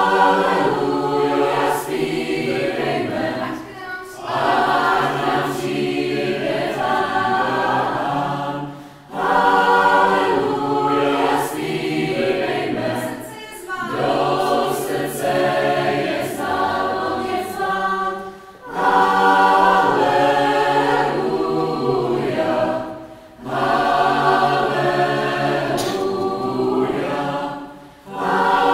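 Choir singing a cappella in phrases of a few seconds each, with short pauses between phrases where the sound drops away.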